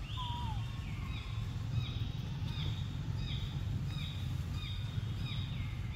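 Repeated short, high chirps, each falling slightly in pitch, about two a second, over a steady low rumble of outdoor noise. One lower, falling call sounds near the start.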